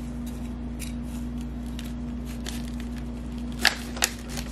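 Kitchen knife cutting through the roots and rhizome of a bird's nest snake plant (Sansevieria): faint scraping and crunching, then two sharp snaps near the end. A steady low hum runs underneath.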